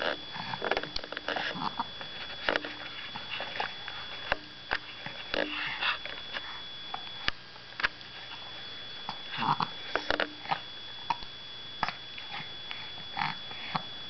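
A baby's mouth noises while gnawing a piece of bread: scattered lip smacks and clicks, with short grunts and snuffly breaths.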